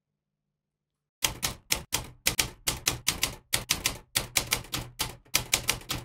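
Typewriter keys striking in a quick, uneven run of sharp clacks, about four a second, starting about a second in.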